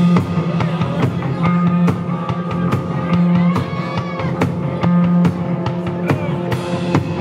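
Live rock band playing at full volume, with a drum kit keeping a steady beat under electric guitar.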